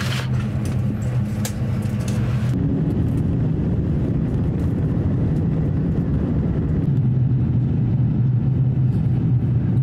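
Jet airliner cabin noise inside an Airbus A350-1000: a steady drone of its Rolls-Royce Trent XWB engines with a low hum. The sound changes abruptly about two and a half seconds in and grows louder near the end.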